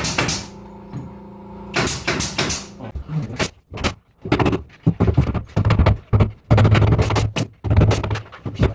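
Interior carpentry work on a job site: an irregular series of sharp knocks and clatter, with a low hum joining from about five seconds in.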